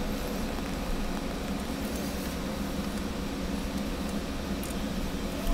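Steady background noise: a low rumble and hiss with a constant hum, the static the camera's faulty audio laid over the recording. No distinct sound stands out.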